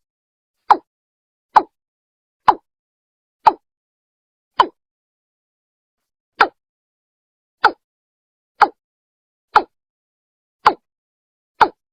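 Watercock (Gallicrex cinerea) calling: a series of short, clipped notes about one a second, with a brief pause partway through. This is the male's breeding-season call, played as a lure to draw birds in.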